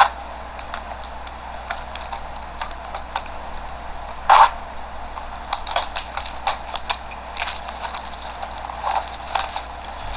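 Baseball card box and foil packs being handled: irregular crinkling and crackling with small clicks, and one louder clack about four seconds in.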